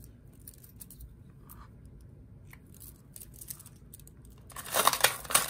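A handful of metal lock picks clicking faintly against each other as they are handled. Near the end they rattle loudly as the bundle is put back into a plastic organizer box.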